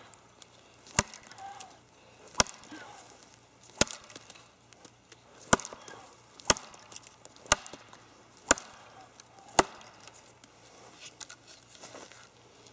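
Terava Skrama, a heavy Finnish carbon-steel knife, chopping into a dry standing spruce trunk about 4 inches thick. Eight sharp blade strikes land roughly a second apart and stop about ten seconds in.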